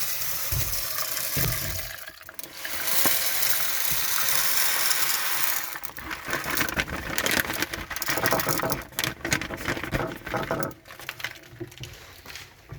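Coarse dishwasher salt poured from a bag through a funnel into the dishwasher's water-filled salt reservoir: a steady granular hiss that breaks off briefly about two seconds in. It becomes uneven and rattling in the second half, then trails off near the end.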